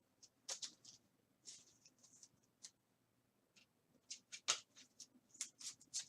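Faint, scattered rustles, scrapes and light taps of trading cards being handled and slid against each other, busier in the last two seconds.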